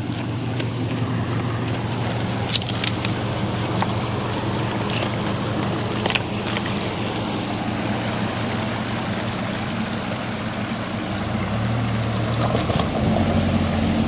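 Toyota HiAce van's engine running low and steady as it crawls slowly through a shallow rocky stream, with running water and a few clicks of stones under the tyres. The engine note rises and grows a little louder near the end as the van climbs out onto the bank.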